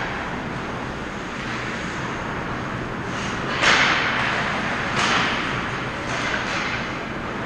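Ice hockey play close to the goal: skates scraping the ice and sticks and puck knocking, each sharp noisy hit echoing briefly in the rink over a steady low background noise. The loudest hit comes a little past halfway, with lighter ones after it.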